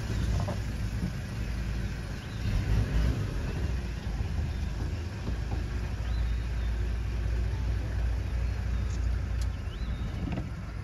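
Low steady rumble of safari vehicles idling, with a couple of faint high chirps.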